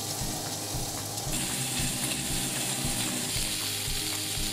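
Pork-belly-wrapped asparagus sizzling in oil in a frying pan, a steady frying hiss that grows louder and brighter about a second in.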